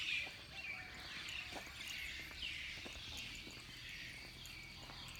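Dawn chorus: many birds calling together, with short falling chirps repeating about every half second, over a steady high-pitched insect hum.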